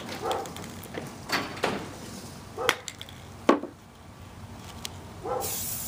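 A few separate knocks and clicks as spray cans and pumpkins are handled on a table, then an aerosol spray-paint can starts hissing about five and a half seconds in.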